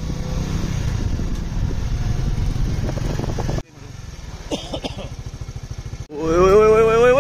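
A motor vehicle engine running with a low rumble. About halfway through the sound cuts to a quieter, steadily pulsing engine. Near the end it cuts again to loud music carrying a long note that glides up.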